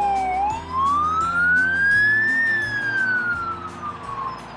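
Fire engine siren wailing: its pitch dips briefly, climbs slowly for about two seconds, then falls away again and gets quieter near the end, with background music underneath.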